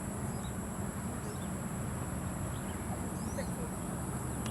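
Steady low rumble with scattered short bird chirps over it and a constant high-pitched insect drone.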